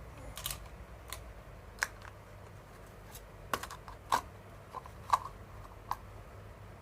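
Light, irregular clicks and taps of plastic toy kitchenware being handled, about a dozen in all, a few with a short ring. The loudest knocks come past the middle.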